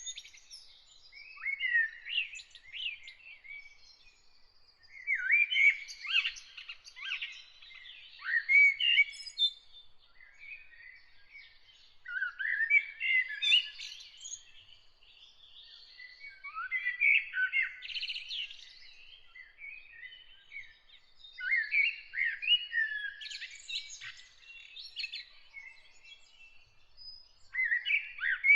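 A bird singing: warbled, chirping song phrases of one to two seconds each, repeated about every three to four seconds with short pauses between.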